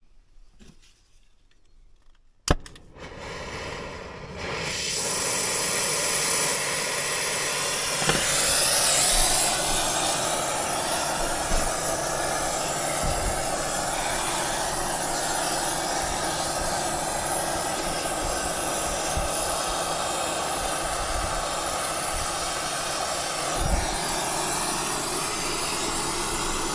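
Oxy-fuel brazing torch on a copper suction-line joint: a sharp click, then the torch hiss builds over a couple of seconds and holds steady.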